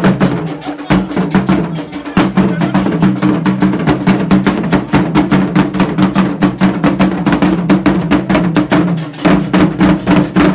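Fontomfrom, the Akan royal drum ensemble, playing a fast, dense rhythm of drum strokes with sharp clicking accents.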